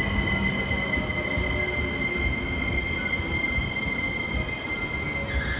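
EF65 electric freight locomotive standing with its equipment running: a steady high-pitched whine with overtones over a low rumble. The whine drops away near the end.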